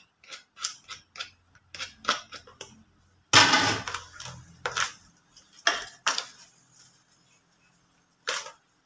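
Plastic spoon scraping and knocking against a plastic bowl as it mixes and mashes a moist taro and grated-coconut mixture, in irregular short scrapes and clicks; the loudest, longest scrape comes a little over three seconds in.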